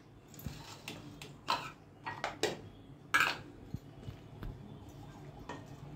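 Stainless steel kitchenware clinking and knocking as it is handled: a handful of short, separate clinks spread through, the sharpest about one and a half and three seconds in.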